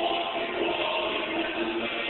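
Music from a dome show's soundtrack, with held notes, heard through the theatre's sound system on a cell-phone recording that cuts off the high end.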